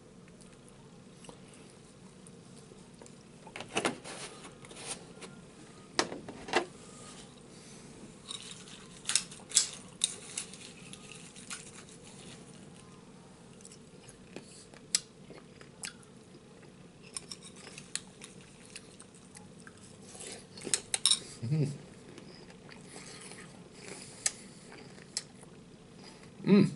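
Spoon clinking against a cereal bowl in scattered, irregular clicks while cereal in milk is eaten, with chewing between spoonfuls.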